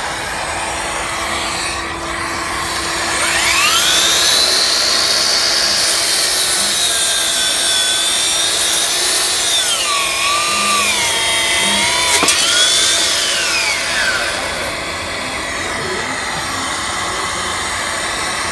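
Cordless wood-cutting saw, running on two 18V batteries, spinning up and cutting through wood. Its blade whine sags in pitch as it bites into the cut, dips lowest about ten to twelve seconds in, and eases off near fourteen seconds as the cut finishes, over a steady background whir.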